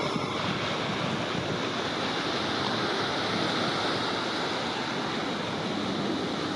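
Steady rushing noise of outdoor wind, with no distinct events.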